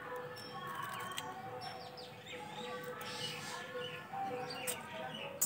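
Birds chirping, with short chirps here and there over a faint steady tone.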